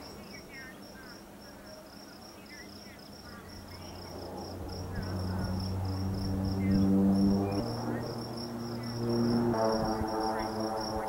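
Crickets chirping steadily while the turboprop engine and propeller of an Air Tractor AT-502B crop-dusting plane drone, growing louder from about four seconds in and peaking around seven seconds.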